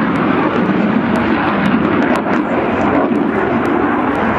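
Su-27 fighter jet's twin AL-31F turbofan engines running overhead, a loud, steady noise throughout.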